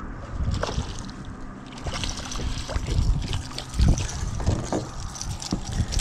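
Water splashing and trickling from a hooked bluefish being lifted at the side of a boat, with irregular knocks and rubbing from handling.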